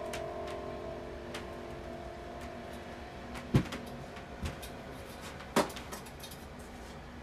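A ringing musical tone fading out, then a few sharp knocks, the two loudest about two seconds apart.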